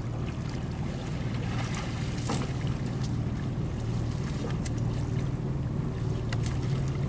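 A barge's engine running steadily with a low hum, with a few light knocks about two, four and a half and six seconds in.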